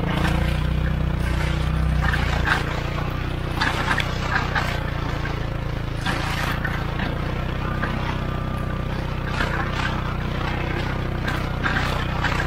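Polaris Ranger 570 utility vehicle's engine running steadily under load as it tows a box blade, a little louder for the first couple of seconds. Dirt, roots and sticks scrape and crackle against the blade's steel spikes and moldboard now and then.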